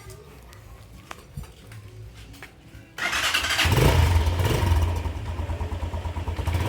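Italika DM200 single-cylinder motorcycle engine starting about three seconds in and then running with a quick, even exhaust pulse. The muffler has one small hole punched in it, and the exhaust note still sounds almost the same as stock.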